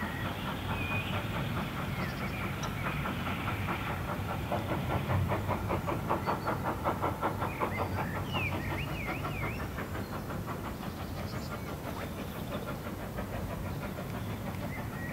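GWR Collett 0-6-0 steam locomotive No. 3205 working a train toward the listener, its exhaust beating in a quick, even rhythm over a steady rumble; the beats are loudest about halfway through, then fade.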